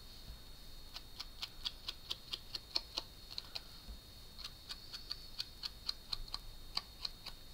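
Quick light tapping, about four or five taps a second, of a foam sponge dauber dabbing ink onto the edges of a paper gift tag, with a short break near the middle while the dauber is re-inked on the ink pad.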